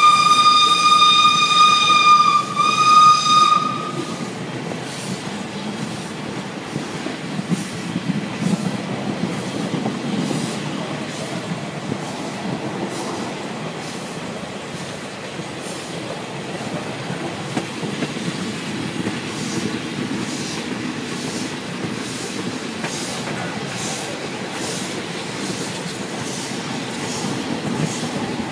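Steam locomotive whistle sounding twice at the head of the train, a long blast of about two seconds then a short one, heard from a carriage window farther back. After it comes the steady running of the train with regular clicks of the wheels over rail joints.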